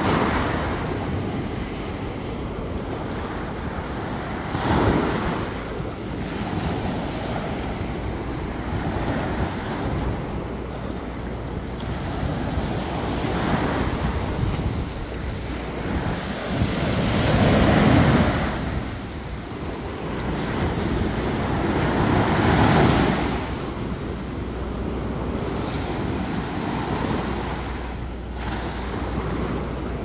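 Small surf breaking and washing up a sandy beach, surging louder every few seconds as each wave comes in, the biggest surges a little past halfway. Wind rumbles on the microphone underneath.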